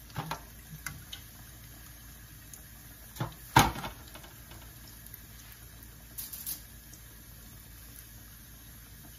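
Doughnuts deep-frying in a pot of hot oil, a steady faint bubbling. Over it come a few knocks of utensils or the pot, a sharp one about three and a half seconds in and a short clatter around six seconds.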